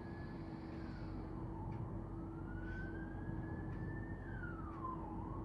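Emergency vehicle siren in a wail pattern: a single tone climbing slowly for about two and a half seconds, then dropping quickly, twice, over a steady low hum.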